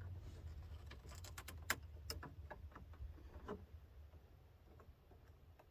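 Faint scattered clicks and light taps of truck door handle and trim parts being handled and fitted, a quick cluster of them about a second in and one more later, over a low steady hum.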